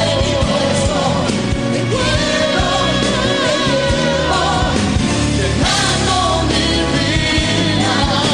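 A man singing a romantic pop song with band accompaniment, holding long notes with vibrato.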